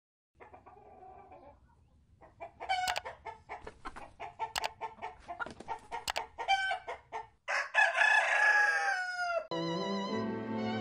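Chickens clucking in a quick run of short calls, then a rooster crowing once in a long call that drops in pitch at its end. About a second before the end, music with sustained violin-like notes starts.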